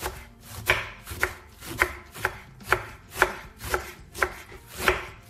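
Kitchen knife slicing white cabbage into thin shreds on a wooden cutting board, each stroke a crisp cut ending in a knock on the board, evenly at about two strokes a second.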